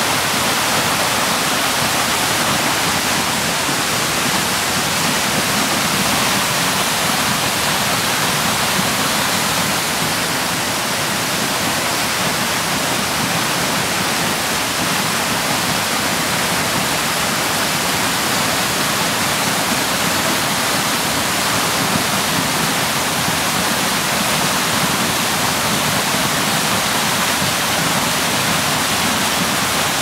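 Waterfall: water falling and splashing onto rocks close by, a loud, steady, unbroken rush.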